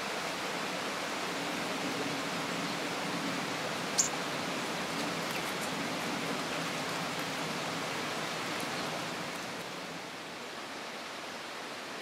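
Steady rushing outdoor background noise, easing slightly about ten seconds in, with a single short, sharp, high call from a small songbird about four seconds in.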